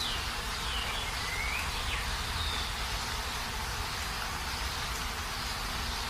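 Heavy rain falling steadily, an even rushing hiss. A few faint whistling glides, falling and rising, sound over it in the first couple of seconds.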